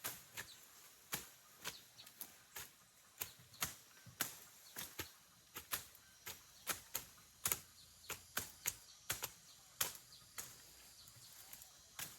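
Repeated sharp strikes of a hand tool chopping, irregular, at about two a second.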